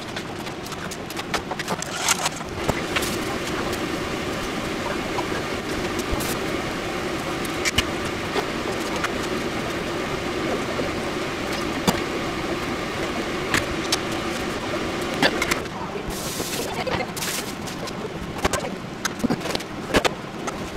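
Kitchen work sounds: a few clicks of an egg being cracked and beaten in a steel bowl, then a steady low hissing of a pot heating on a gas stove burner for about twelve seconds. A couple of short bursts of hiss and then scattered clicks and knocks of handling follow as lettuce is set out on a cutting board near the end.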